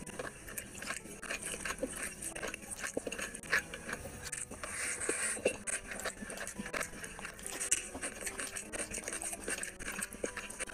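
Close-miked eating: wet chewing and lip-smacking with many small clicks as curry and rice are eaten by hand, and fingers squelching through the rice toward the end.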